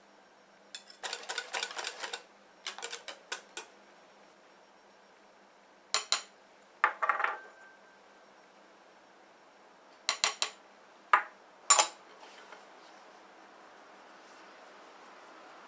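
Wire whisk rattling quickly against a glass bowl in two short runs, then a metal mesh sieve knocking against the bowl's rim several times as flour is sifted.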